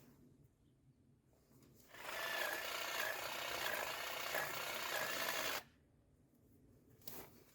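A power tool runs steadily for about three and a half seconds, starting about two seconds in and stopping abruptly, followed by a brief faint noise near the end.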